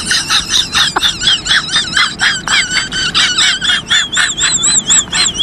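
High-pitched laughing sound effect: rapid cackling pulses at about four a second, with a wavering, goose-like pitch that steadies toward the end.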